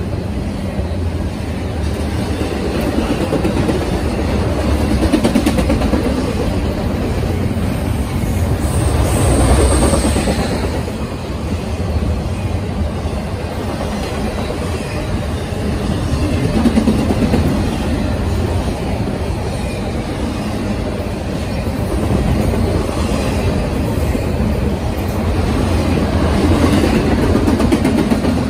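Norfolk Southern freight train rolling past: a steady low rumble with wheels clattering over the rail joints, swelling and easing as it goes by, and a brief high squeal about nine seconds in.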